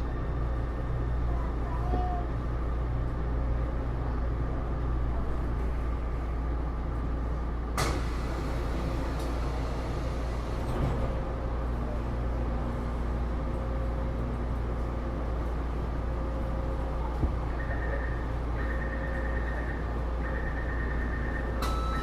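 Steady low hum and rumble inside a Taipei Metro C301 metro car, with a sharp click about 8 seconds in and a run of short high beeps near the end.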